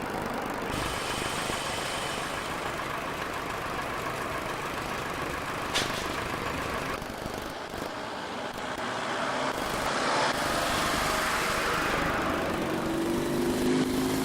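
Heavy vehicle diesel engines running on the construction site, a steady mechanical drone that shifts abruptly a couple of times. There is one sharp knock about halfway through, and a stronger, deeper engine note comes in near the end.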